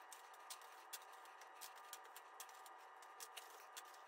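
Faint, irregular clicks of small round hard-shelled candies being picked up and dropped by hand in plastic weigh boats, several a second.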